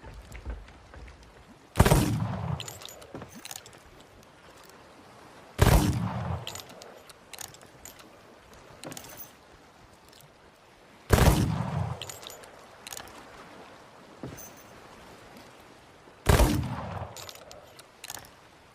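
Double-barrel pistol firing four single shots several seconds apart, each with a long echoing decay, and small clicks and knocks between the shots.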